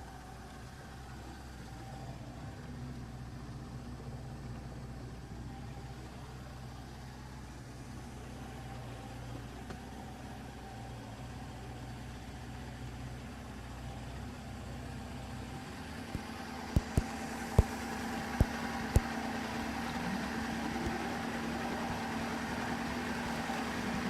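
An engine idling steadily. About two-thirds of the way through, the low hum drops away, a handful of sharp knocks follow, and a steadier, higher hum with more hiss takes over.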